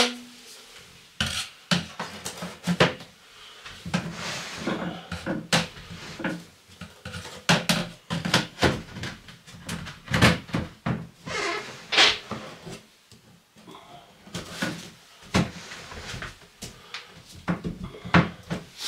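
Hard plastic parts of an AGANDE WC-B 500 compost toilet and its PVC vent-pipe fittings being handled and pushed together: irregular clacks and knocks, some sharp, with a brief lull about two-thirds of the way through.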